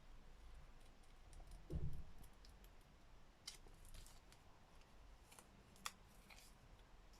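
Quiet handling of craft materials on a work table: a few faint clicks and a soft thump a little under two seconds in.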